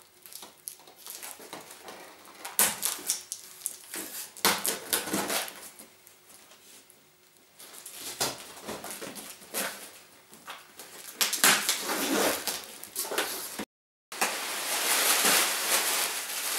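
A cardboard parcel being opened by hand: a knife slitting the packing tape, tape tearing and cardboard flaps scraping and knocking in irregular bursts. After a brief dropout near the end, plastic wrapping rustles steadily as it is pulled out of the box.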